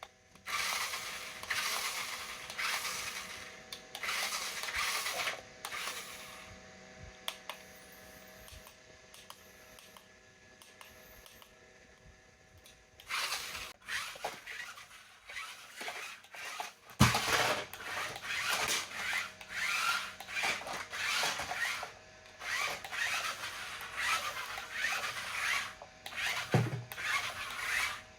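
Packaging being handled and unwrapped: repeated bouts of rustling and scraping, quieter for several seconds in the middle, with two dull knocks, at about 17 s and again near the end.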